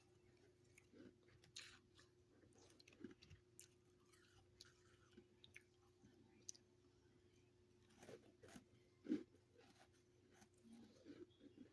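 Faint, scattered crunches of a person chewing soft freezer frost, with the loudest crunch about nine seconds in, over a faint steady hum.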